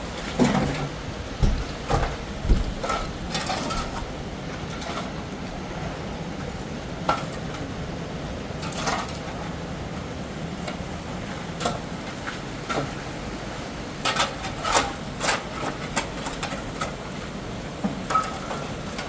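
Irregular knocks and clatters, several in quick succession near the start and again about two-thirds of the way through, over a steady background noise.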